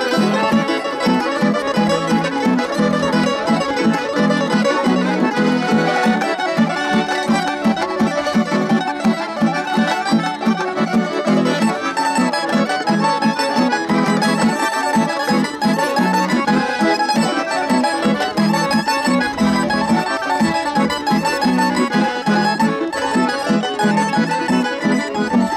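A Balkan folk band playing a lively tune over a steady, pulsing beat.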